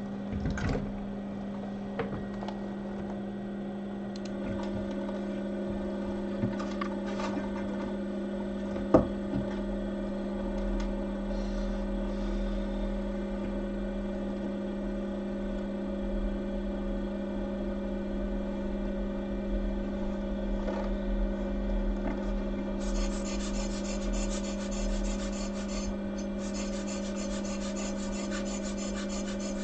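Steady electrical hum of running soldering-bench equipment, with a few light knocks and taps in the first ten seconds, one sharper about nine seconds in. A high hiss joins about three-quarters of the way through and stays.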